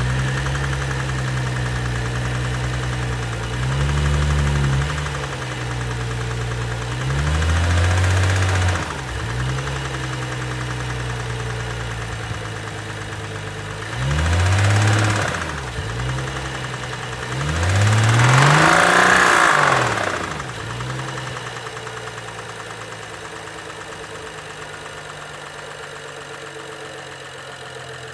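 BMW 135i's N55 3.0-litre turbocharged straight-six idling and blipped four times, the last rev the longest and loudest, then settling back to a quieter idle. The engine knocks, which the seller puts down to bearing damage.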